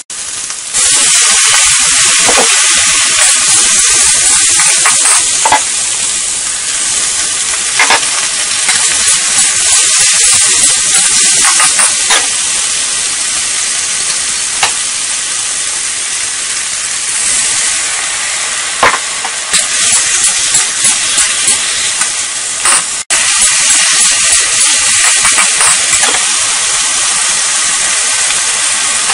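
Food sizzling hard in a hot wok, the hiss jumping up about a second in as wine is drizzled onto the hot metal, then a steady loud sizzle with occasional short scrapes and knocks of the metal spatula tossing the stir-fry.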